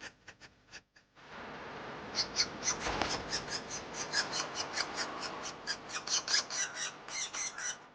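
Okinawa woodpecker nestlings begging at a feeding visit: a harsh, rasping hiss with rapid, repeated squawking calls, about four or five a second, starting about a second in.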